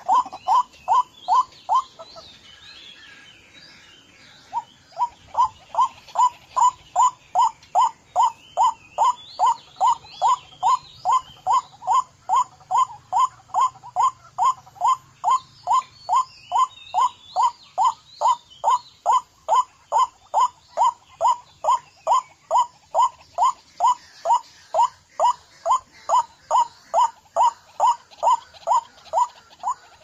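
White-breasted waterhen's monotonous 'kwak' call, one short note repeated about twice a second, with a pause of a couple of seconds near the start. Faint chirps of other small birds sound above it.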